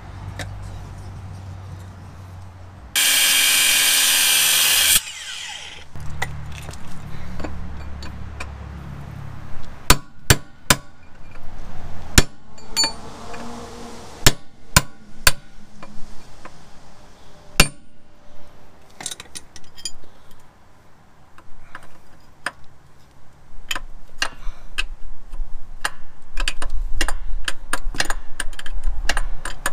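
Hand tools working on a Jeep Wrangler TJ's front steering linkage: many sharp metal clicks and knocks of wrenches and tools on the tie rod end. About three seconds in comes a loud steady noise lasting about two seconds.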